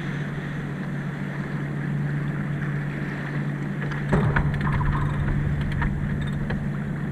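Sailboat under way in a race: a steady low hum over a noisy wash of water and wind. About four seconds in comes a sharp knock, then a run of irregular clicks for a couple of seconds, the kind of deck-gear sound made while a crew works the winches and sheets.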